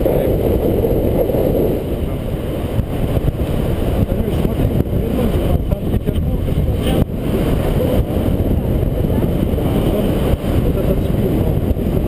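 Wind buffeting the microphone of a camera on a paraglider in flight: a steady low rush of air noise, with no engine.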